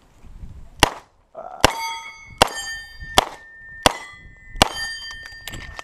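Six revolver shots fired at a steady pace, roughly one every three-quarters of a second, each followed by the clang of a steel target plate ringing on after the hit.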